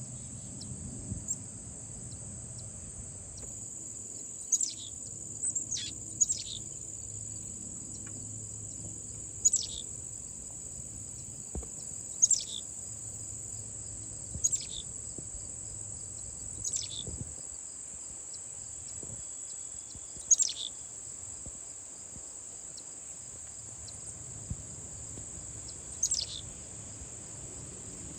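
A steady, high-pitched insect chorus, with a bird giving short, sharp calls that drop quickly in pitch, about ten of them a few seconds apart.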